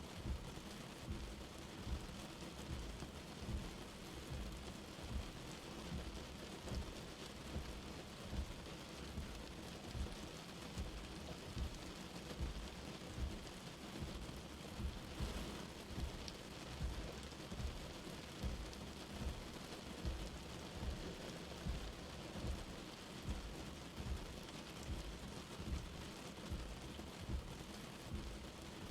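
Light rain falling steadily, with soft low thuds about once or twice a second throughout.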